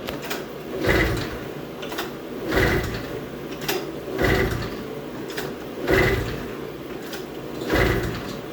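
Repeated mechanical strokes, one about every 1.7 seconds, each about half a second long, with small clicks in between.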